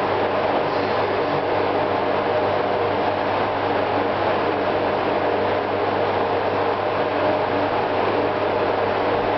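Steady, even background hiss with a low hum underneath, unchanging throughout.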